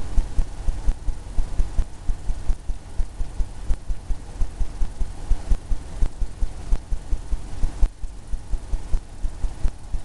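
Paintbrush working oil paint on a stretched canvas on an easel: a fast, uneven run of low thumps, several a second, as the brush strikes and drags across the drum-like canvas.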